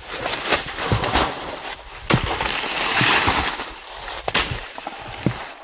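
Dry plantain leaves and undergrowth rustling and crackling as someone pushes through them, with several sharp snaps; loudest about three seconds in.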